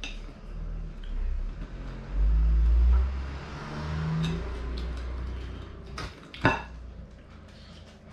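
Metal fork picking at a cooked lobster's shell and clicking on the plate, with two sharp clicks about six seconds in. Under it runs a low rumble that swells about two seconds in and fades.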